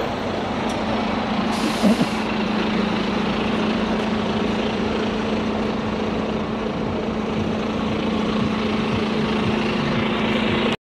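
Street traffic with a large vehicle idling close by, a steady low hum, and a short hiss of air about one and a half seconds in, like an air brake releasing. The sound cuts off abruptly near the end.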